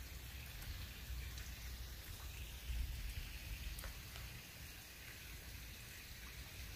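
Faint crackle of footsteps in dry leaf litter, with scattered irregular light ticks over a low rumble of wind on the microphone.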